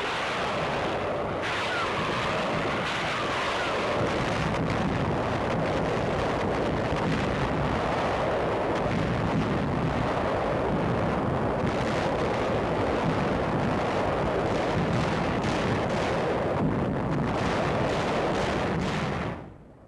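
Continuous heavy rumble of naval bombardment, gunfire and explosions merging into one dense roar. It cuts off abruptly near the end.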